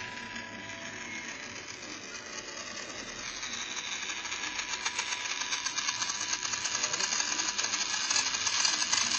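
A toy RC car's small electric drive motor spinning a wheel, run from a prototype motor shield: a fast rattling whir that grows steadily louder.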